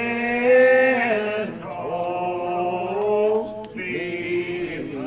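Slow, unaccompanied hymn singing in the Old Regular Baptist lined-out style: male voices hold long notes and slide slowly from one pitch to the next, with brief breaks between phrases.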